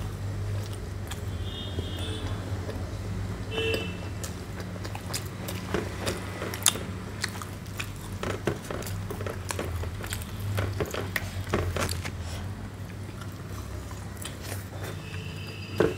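Eating sounds: crispy puris torn and bitten by hand, with chewing and a run of small clicks and wet smacks, densest from about five to twelve seconds in. A steady low hum runs underneath.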